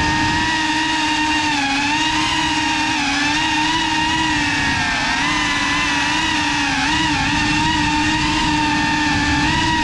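GEPRC CineLog35 cinewhoop FPV drone's brushless motors and ducted propellers whining steadily, heard from the onboard GoPro. The pitch wavers slightly up and down as the throttle changes.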